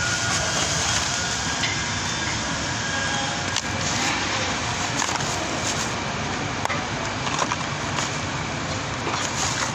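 Steady background noise with a few light clicks and rustles as a new spark plug and its cardboard box are handled over a plastic bag.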